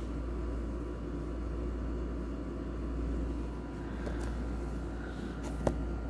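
A steady low rumble, with a single sharp click a little before the end.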